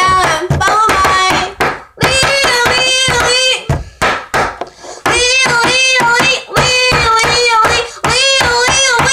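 A girl singing long held notes to a beat made with the hands, sharp slaps or claps falling between and under the notes.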